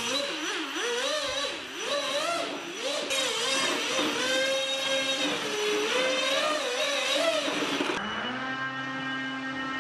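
Electric motor and propeller of a small RC airboat revving up and down with the throttle, its whine rising and falling over and over. Around the middle it holds one speed for a moment.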